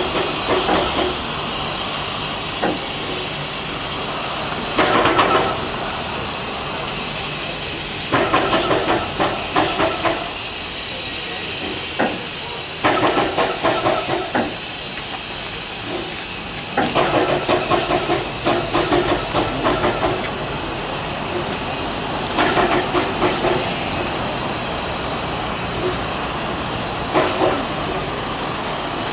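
Welshpool & Llanfair Railway's No. 8 Dougal, a small Barclay 0-4-0 tank engine, shunting carriages with a steady hiss of escaping steam. About six short spells of rapid exhaust beats break in as its driving wheels slip.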